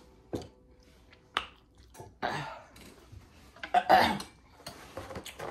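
A few sharp clicks, then short rustling bursts of paper being handled, the loudest about four seconds in as a paper towel roll is handled.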